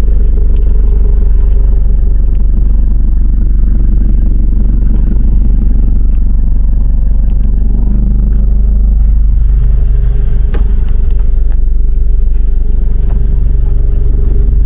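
Toyota GR86's 2.4-litre flat-four engine running loud and steady through an AWE Touring exhaust, held at raised revs for an exhaust loudness test, with a change in pitch about eight seconds in.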